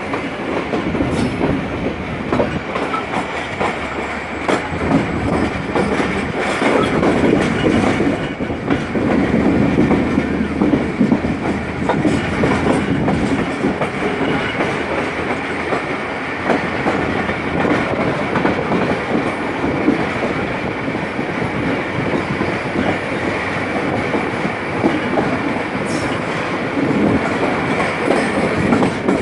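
Pakistan Railways passenger coaches running at speed, heard from an open coach doorway. The steel wheels clack irregularly over the rail joints above a steady running rumble.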